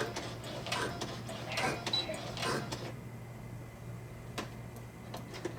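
Brother SE-400 sewing machine stitching slowly through thick nylon strap webbing: separate mechanical clacks a little under a second apart for about the first three seconds, then it goes quieter with one more clack later.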